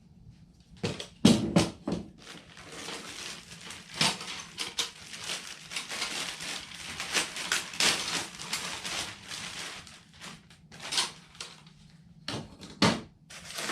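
Packaging rustling and metal and plastic parts clattering as a drawer kit is unpacked and handled, with several sharp knocks, the loudest a little over a second in.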